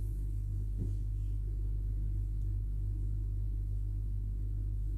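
A steady low hum, with one faint knock about a second in.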